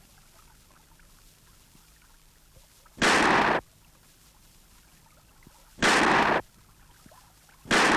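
Three hunting shotgun shots, each a loud blast lasting about half a second with a short echo. They come about three seconds in, about six seconds in, and again near the end.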